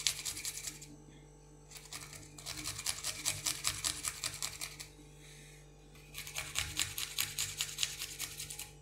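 Fast, even clicking or tapping in three runs with short pauses between them, over a faint steady hum.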